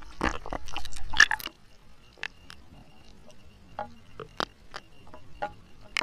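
Seawater sloshing and splashing over a waterproof action camera at the surface for about the first second and a half. After that come scattered sharp taps of raindrops striking the camera housing and the sea.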